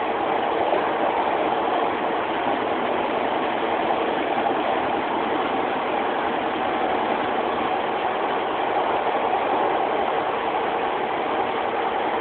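Steady drone of a Class 156 Super Sprinter diesel multiple unit heard from inside the passenger saloon: the underfloor diesel engine running with no breaks or clicks.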